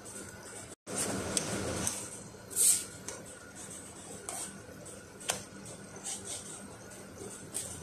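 Slotted spatula clicking and scraping against a flat griddle as the flatbreads are turned, with sharp taps scattered throughout and a short hiss about two and a half seconds in.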